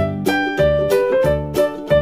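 Background music with a steady beat: short pitched notes forming a melody over a repeating bass note.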